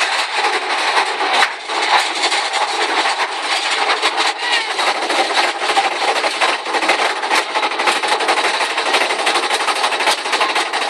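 Roller-coaster mine train climbing a lift hill: a steady, rapid clacking rattle of the lift chain under the cars.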